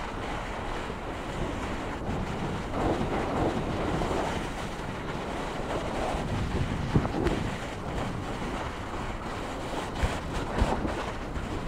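Wind rushing over the microphone: a steady, noisy rush that swells now and then, with a few dull thumps near the end.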